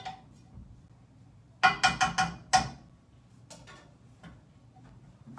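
A kitchen utensil tapping against a bowl: about four quick ringing clinks in a row, followed by a few fainter taps.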